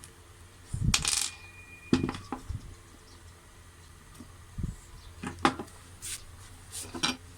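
Scattered small metallic clinks and plastic clicks as a leftover screw is taken out of a cordless impact driver's plastic housing, with a brief metallic ring about a second in.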